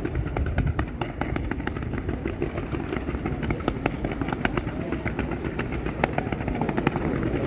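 Fireworks going off: a dense run of irregular sharp cracks and pops over a continuous low rumble of explosions.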